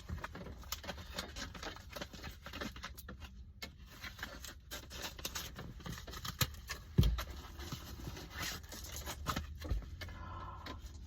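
Hands opening a package: rustling and scraping of packaging with many small clicks, and a sharp thump about seven seconds in.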